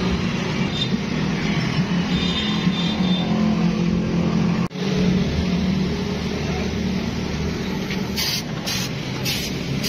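A steady, loud, low machine hum. Near the end come a few short, scratchy rasps, about half a second apart.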